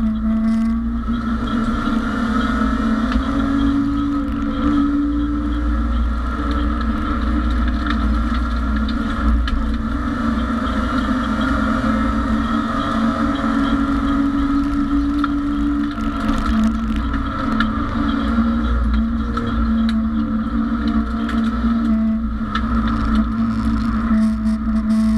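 Engine of a BMW E30 race car heard from inside the stripped cabin, running at fairly steady revs with only small rises and dips in pitch, over a constant rumble of road noise.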